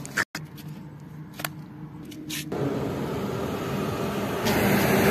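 Highway traffic noise: a passing vehicle's engine and tyre noise building up and growing steadily louder over the last few seconds, after a brief break near the start.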